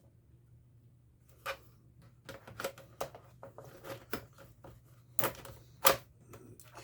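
Irregular sharp plastic clicks and knocks from laptop parts being handled and fitted, as the optical drive and its screw go back in; two louder knocks near the end.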